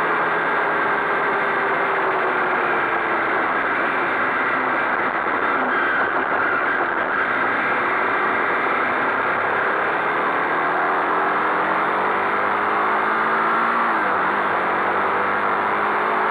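A Honda CBX 250 Twister's single-cylinder four-stroke engine heard from on board at speed, with heavy wind rush on the microphone. The engine note falls as the bike slows over the first few seconds, then climbs as it accelerates again, dropping sharply at a gear change near the end.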